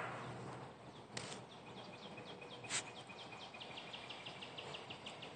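A dog sneezing twice, two short sharp bursts about a second and a half apart, from its allergies. Behind them a faint series of short high chirps repeats, speeding up toward the end.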